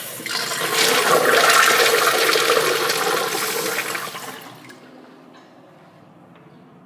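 Kohler urinal flushing: a rush of water that builds within the first second, runs strongly for about three seconds, then dies away by about five seconds in, leaving a faint hiss.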